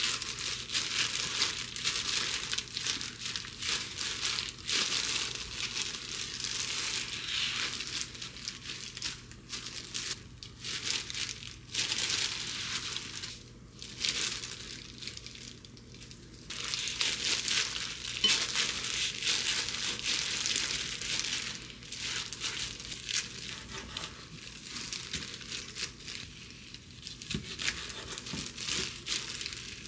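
Thin disposable plastic gloves crinkling and rustling in irregular spurts as hands press and roll gimbap in dried seaweed, with a knife cutting through the rolls near the end.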